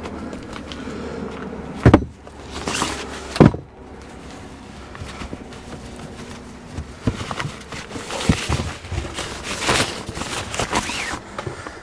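Two loud, sharp knocks about a second and a half apart, then footsteps with scattered clicks and rustling.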